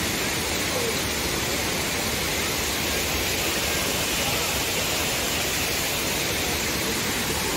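Steady, unbroken rush of a big, fast-flowing waterfall.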